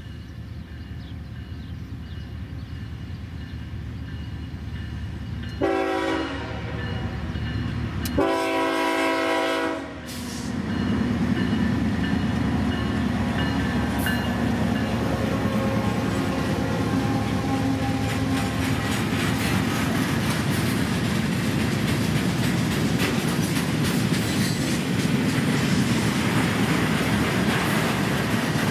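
Freight train led by BNSF diesel locomotives approaching and passing, with the engine rumble growing louder. The horn sounds twice, a short blast about six seconds in and a longer one about eight seconds in. The locomotives then go by and loaded steel flatcars roll past with a steady clickety-clack of wheels on the rails.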